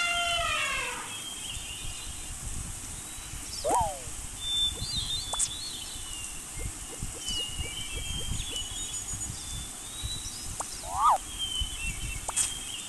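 Outdoor animal soundscape: a drawn-out pitched animal call that slides down and ends about a second in, then scattered high bird chirps and two short up-and-down calls, the loudest sounds, about 4 and 11 seconds in, over a steady low rumble.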